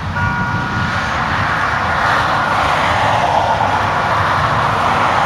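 A car passing close on the road: a steady rushing noise that swells after about a second and slides lower in pitch as it goes by. A short horn-like tone sounds at the start.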